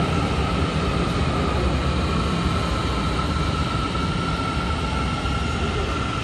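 Kunming Metro Line 5 train arriving at the platform behind glass screen doors: a steady rumble of the train running in, with a steady high whine held throughout.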